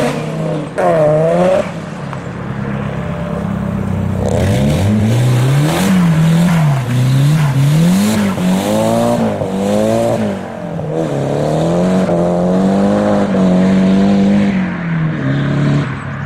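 Car engines revving hard while pulling away: a Mazda RX-7 revs up and back down briefly at the start. A Nissan S13 then follows, its revs swept up and down over and over, held at a steady high pitch for a few seconds and dropping near the end.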